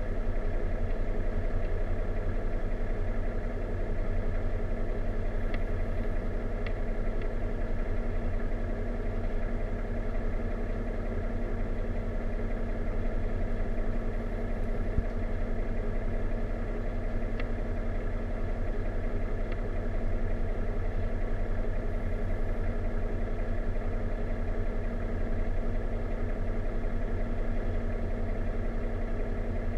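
A stopped train's engine idling, heard from inside the passenger car: a steady low drone with a constant tone. There is a single short click about halfway through.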